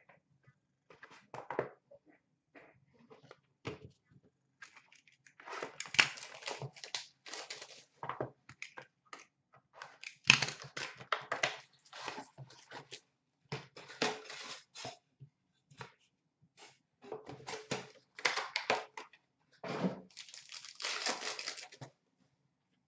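A cardboard trading-card box and its packs being torn open by hand: irregular bursts of tearing and crinkling, with rustles of cards being handled.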